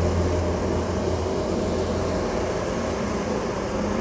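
Large gas-fired air turnover unit running just after light-off: a steady roar of the main burners and air-handler blower with a low hum that eases about two seconds in.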